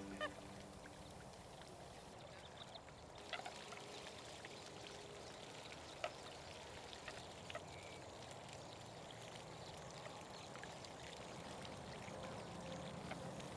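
Faint water sounds of coots and ducks feeding in shallow marsh water: a soft steady trickle with scattered small splashes and drips.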